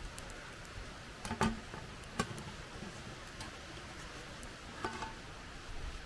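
A few short, light knocks and clicks, the loudest about a second and a half in and others near two seconds and five seconds, over a steady hiss.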